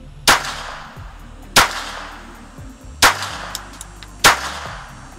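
Four pistol shots fired one at a time, about a second and a half apart, each with a short echo trailing off. Background music plays faintly underneath.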